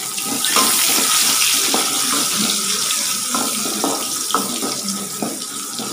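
Sliced onion sizzling in hot oil in a kadai, swelling about half a second in and slowly easing, while a ladle stirring it scrapes and knocks against the pan now and then.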